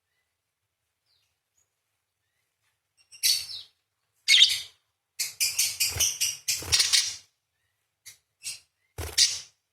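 Parakeet giving harsh, screeching chatter calls, starting about three seconds in: two short bursts, then a rapid run of chatter lasting about two seconds, a couple of brief chirps, and one last burst near the end.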